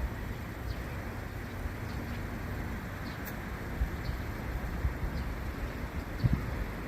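Steady outdoor background noise with low rumbling gusts on the microphone and faint, short high chirps repeating every half second or so, typical of a small bird calling; no train is passing close by.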